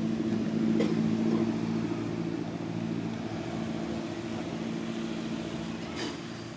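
Motor vehicle engine running steadily with a low hum, swelling about a second in and then slowly fading. A couple of sharp clicks sound over it.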